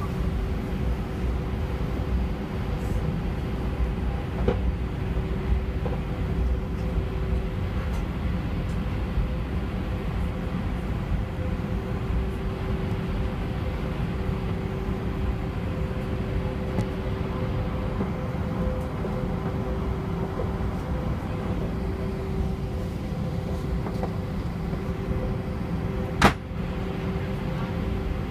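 Cabin sound of an Airbus A319 with IAE V2500 engines taxiing: a steady engine hum with two held tones over a low rumble. A single sharp click near the end.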